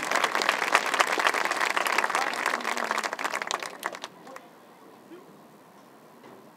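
Stadium crowd applauding, with some voices among it; the clapping dies away about four seconds in, leaving a quiet hush.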